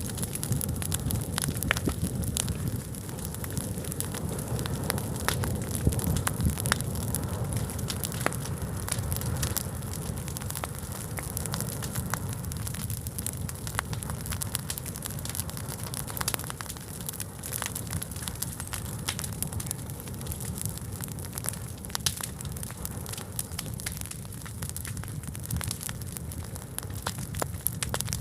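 A large fire burning, with a steady low rush and frequent sharp crackles throughout.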